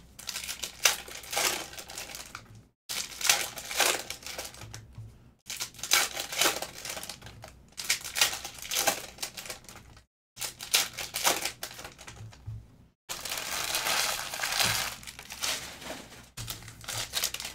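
Foil wrappers of Panini Optic football card packs being torn open and crinkled by hand, in repeated irregular bursts.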